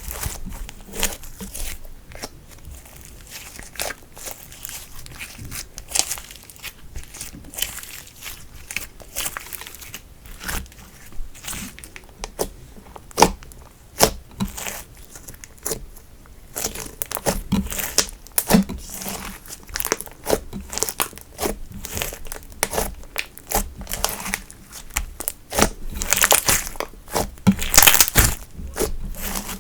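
Hands kneading and pressing slime: a continuous run of sticky crackles and small clicking pops, denser and louder in the second half.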